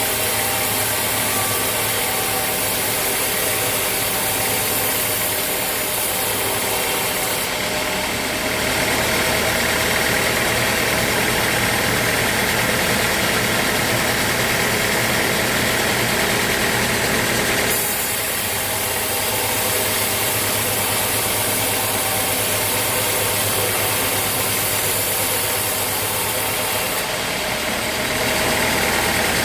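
Sawmill machinery running steadily with an engine-like hum, growing louder and hissier for a long stretch from about a quarter of the way in to just past halfway, and again near the end.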